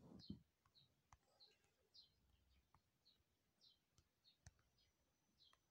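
Faint, irregular clicks of typing a password on a smartphone's on-screen keyboard, about two to three taps a second.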